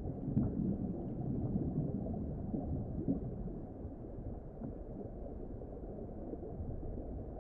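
Steady, muffled underwater ambience: a low rumble of moving water with no clear events.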